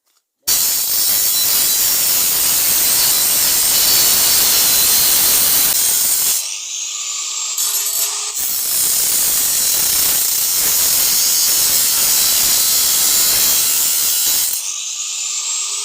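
Angle grinder cutting through an iron rod, starting about half a second in with a loud, steady hiss. Twice, at about six and a half seconds and near the end, the disc comes off the metal and the motor runs on alone with a rising whine, then bites back in.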